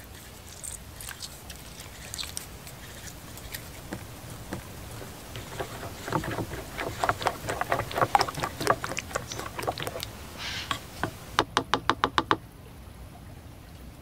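Wooden stick whisking a thin batter in an enamel bowl: fast wet clicking strokes that grow louder through the middle, ending in a quick even run of about nine sharp knocks. Faint crackling and light ticks come before the whisking.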